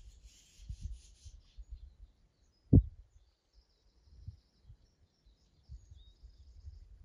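Wind buffeting the microphone in low, uneven gusts, with one sharp thump a little under three seconds in. Faint high bird chirping in the first second and a half.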